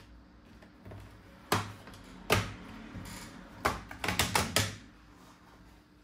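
Plastic bottom cover of a Lenovo V14-ADA laptop being pried off, its clips releasing with sharp clicks and snaps: two single clicks, then a quick run of about five.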